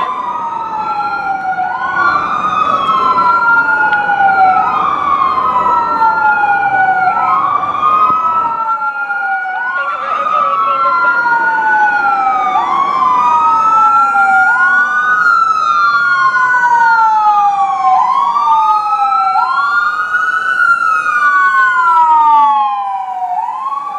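Fire engine's electronic siren in wail mode: each cycle climbs quickly and falls slowly, repeating about every two seconds, with a second, weaker siren sweep overlapping. It is loud until near the end, then drops as the truck passes.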